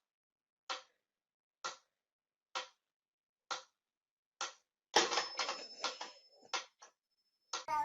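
A run of short, evenly spaced knocks or taps, about one a second, followed about five seconds in by louder scuffling and rustling noise.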